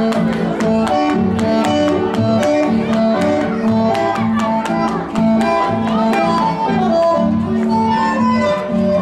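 Dance music with a steady beat and a melody carried on sustained instrumental notes, played loud at a party.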